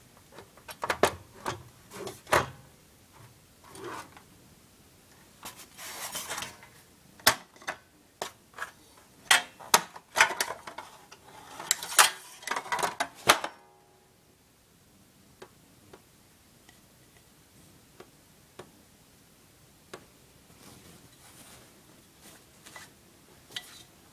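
Fluorescent fixture with a faulty, slow glow starter clicking irregularly as the F15T8 15 W tube tries to strike, with two short stretches of hissing buzz. About 13 seconds in, the clicking stops abruptly and only a few faint ticks follow.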